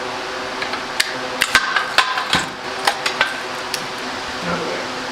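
A quick run of sharp metallic clinks and knocks as tools and metal parts are handled, bunched in the middle few seconds, over a steady hum.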